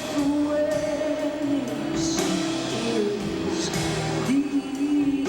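A live band playing rock music: long held melody notes over guitar and drums, with regular cymbal hits, taken through a VHS-C camcorder's built-in microphone.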